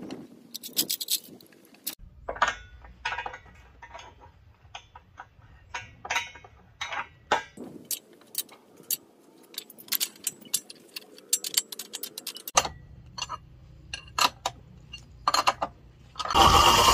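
Metal clinks, knocks and scrapes of chain and wrench as a wooden block is clamped into a homemade wood lathe and its threaded tailstock is tightened. Near the end the belt-driven lathe starts suddenly and runs loud and steady.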